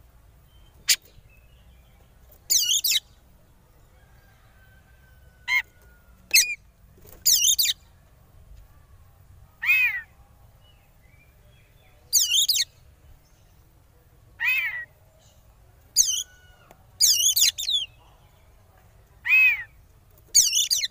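Oriental magpie-robin (kacer) calling in about a dozen short, separate bursts. Some are whistled notes that fall in pitch; others are very high, rapid fluttering notes. This is the agitated 'konslet' calling used as a lure to set rival magpie-robins calling.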